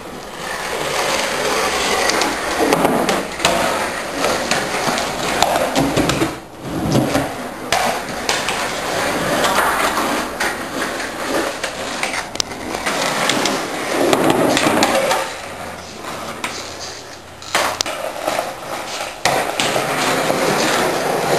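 Skateboard wheels rolling on a concrete garage floor, with repeated sharp clacks and knocks of the board hitting the ground.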